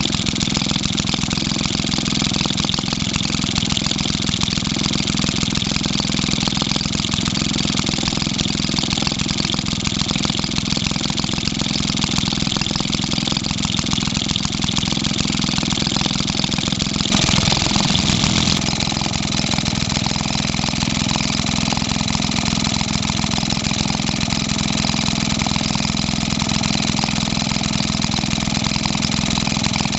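Maytag Model 72D twin-cylinder two-stroke engine running steadily with a rapid, even beat. It is briefly louder for a second or so a little past halfway.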